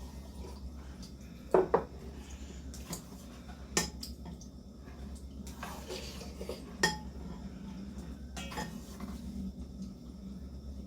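Eating utensils clinking and knocking against bowls and a pot during a meal, a handful of separate sharp clinks a second or two apart.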